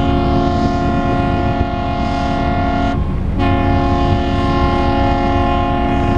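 Several boat horns sounding together in long held blasts over the low rumble of boat engines, the horns breaking off briefly about three seconds in.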